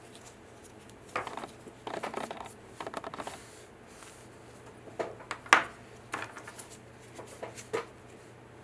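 Handling sounds: short scratchy rubbing of plastic-gloved hands on a 3D-printed resin piece, then several light clicks and knocks as a plastic sanding block is picked up. The sharpest click comes about five and a half seconds in.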